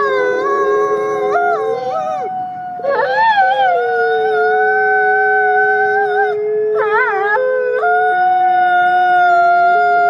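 Gray wolves howling in long, steady held notes at two different pitches that overlap. There is a short break a little after two seconds in, and a brief wavering higher call about seven seconds in.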